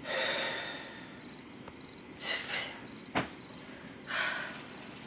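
A man breathing heavily as he falls asleep in bed, three long breaths about two seconds apart, with one sharp click about three seconds in. A steady chirping of crickets runs behind.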